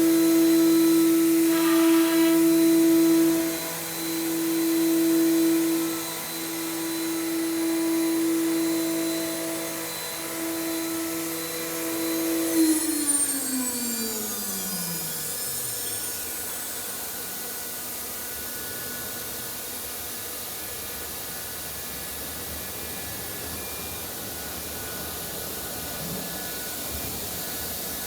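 CNC router spindle running at high speed with a steady high whine, its loudness swelling and dipping as it works. About halfway through it is switched off and its pitch falls away over about three seconds as it spins down, leaving a steady hiss.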